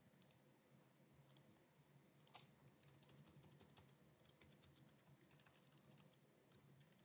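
Faint typing on a computer keyboard: a few single clicks, then a quick run of key clicks from about two seconds in that thins out toward the end.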